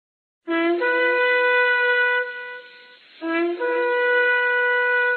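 Shofar (ram's horn) blown twice: each blast starts on a short low note, jumps up to a higher note and holds it for about two seconds before fading.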